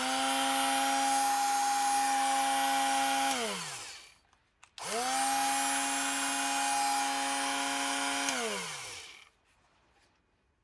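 Makita cordless mini angle grinder with a 75 mm disc, run twice. Each time it spins up quickly to a steady whine, runs for about three and a half seconds, then winds down.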